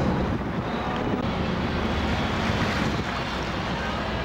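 Steady wind rushing over the microphone aboard a boat at sea, with a low, even rumble from the boat underneath.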